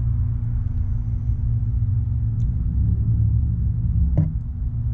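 Steady low hum throughout, with a single brief click about four seconds in.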